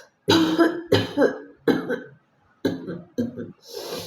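A woman coughing on purpose: short, harsh coughs in two quick runs, ending in a breathy, raspy throat sound.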